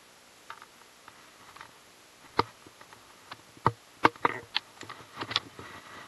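Fishing rod and reel being handled: a scattered string of sharp clicks and taps. The loudest come between about two and five and a half seconds in.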